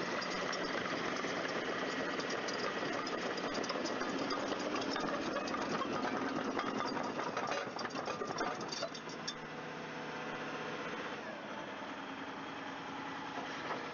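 Diesel engine of a large piece of construction equipment running with a busy mechanical rattle, then settling to a quieter, steadier run about nine seconds in.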